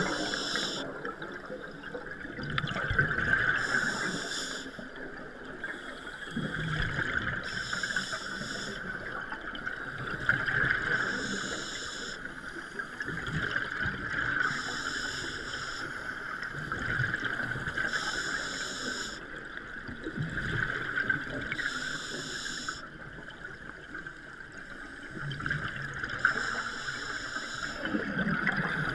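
Scuba diver breathing through a regulator underwater, each exhalation a rush of bubbles that comes every three to four seconds.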